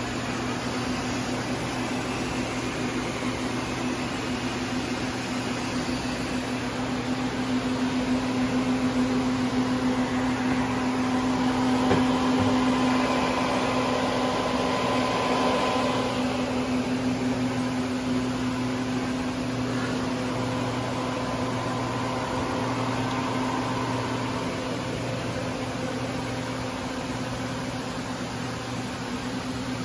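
Steady machine hum from a powered-up Citizen M20V CNC Swiss lathe, its motors and cabinet cooling fans running, with a low electrical drone. It swells a little around the middle.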